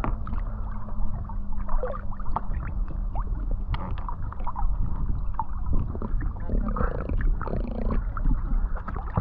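Muffled water gurgling and sloshing close to an action camera, with scattered sharp clicks and a faint steady low hum beneath.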